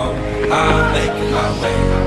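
Background music with a singing voice over it.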